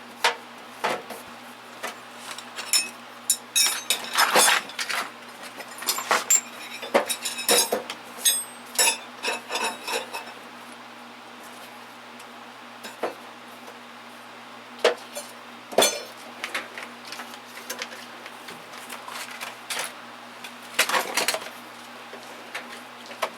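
Metal hand tools clinking and clattering as they are picked up, sorted and set down in a toolbox. The knocks come thick and fast for the first ten seconds or so, then only a few scattered clanks follow.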